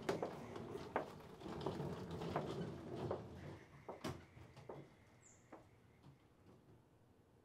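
Footsteps and the rattle of wheeled suitcases rolling across the floor, with irregular clicks over a low rumble, fading away after about three seconds. A single short high chirp follows near the end.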